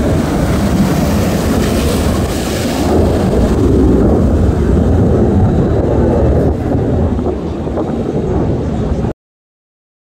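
Loud wind buffeting the microphone, a steady low rumble that cuts off abruptly about nine seconds in.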